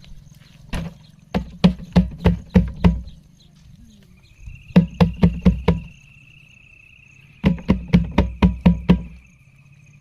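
Pig grunting in three quick runs of short grunts, about four a second and five to seven per run.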